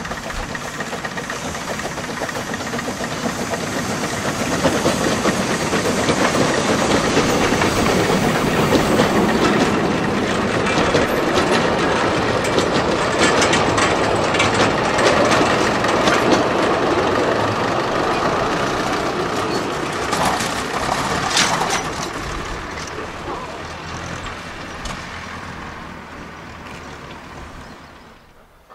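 Narrow-gauge steam locomotive passing with a short freight train: the train noise swells as it approaches, the wagons clack over the rail joints in the middle, and the sound fades as the train moves off.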